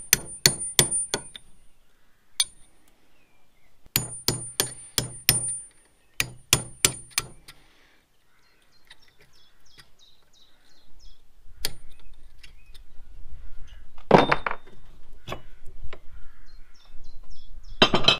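Hammer blows on a steel punch held in a bench vice, driving out an old leaf spring bush: sharp, ringing metal strikes in quick runs of about five. In the second half come handling noise and a few single louder metal knocks.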